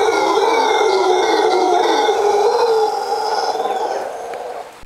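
Mantled howler monkey howling: one long, loud, rough call that fades over the last second or so and stops shortly before the end.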